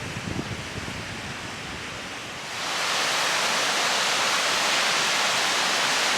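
Rushing water of a river or waterfall, heard as a steady hiss that jumps abruptly louder about two and a half seconds in.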